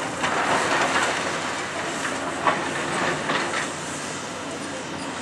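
Caterpillar hydraulic excavator working concrete demolition rubble: its diesel engine runs steadily under clattering and knocking of debris, with a sharp knock about two and a half seconds in.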